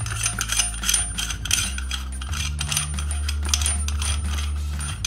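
Chrome basin waste fitting and its washers being handled, small metal parts clicking and clinking many times.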